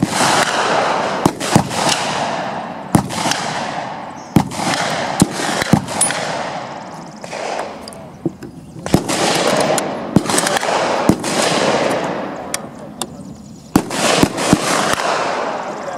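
Rifle gunshots from several guns on an outdoor firing line, a dozen or so sharp reports at irregular spacing, each trailing off in a long rolling echo.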